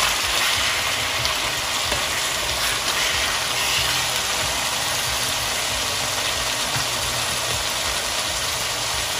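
Minced mutton with tomatoes and spices sizzling steadily in a hot non-stick frying pan as it is stirred with a wooden spatula, over a steady low hum.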